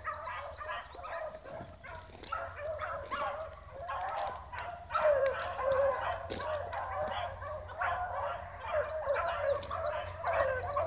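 A pack of beagles baying on a scent trail, several voices overlapping in a continuous chorus that swells about five seconds in: hounds giving tongue as they track the game.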